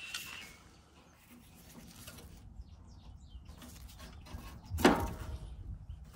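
Hand tool working the cooling fan blades and sheet-metal radiator shroud of a tractor, to clear blades that had been hitting the shroud flange: light scraping and handling, with one loud sharp clank about five seconds in.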